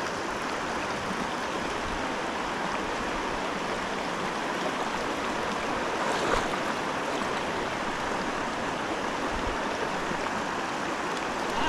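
Steady rush of the Salmon River's current flowing around the wading anglers, with one short sharp sound about six seconds in.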